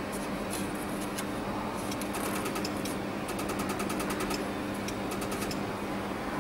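BHJ 300W pulsed laser welding machine firing on a stainless-steel seam: rapid trains of sharp clicks, one per laser pulse, about nine to ten a second at their fastest in the middle, over the machine's steady low hum.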